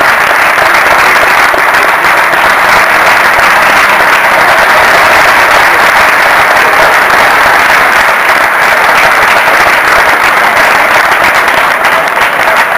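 Loud audience applause: dense, steady clapping from a crowd that eases off slightly near the end.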